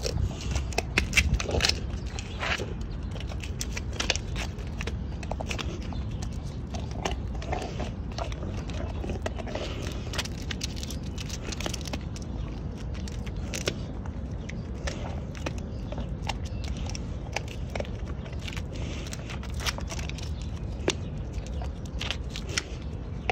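Dog chewing a fish treat: irregular crunches and clicks, densest and loudest in the first couple of seconds, over a steady low rumble.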